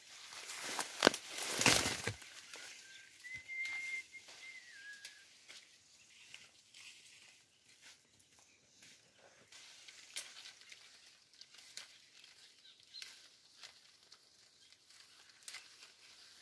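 Leafy branches rustling and twigs snapping as leaves are picked by hand, with a loud rustle about a second in and small crackles throughout. Around three seconds in comes a short whistle that steps up in pitch and back down.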